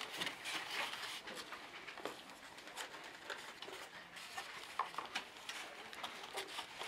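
Foam clamshell takeout boxes being handled, opened and closed around a table: scattered light clicks and taps, with a few brief squeaks of the foam lids about five seconds in.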